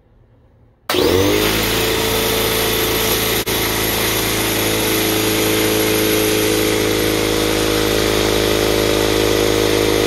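A 13-gallon, 125 PSI electric air compressor starting up about a second in, its motor spinning up quickly and then running steadily as the pump builds pressure. The newly fitted pressure switch has closed and the compressor, which would not turn on before, is running.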